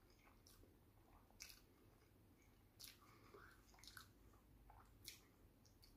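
A person chewing a mouthful of soft-bun burger, faintly: a few small wet mouth clicks, roughly one a second, over near silence.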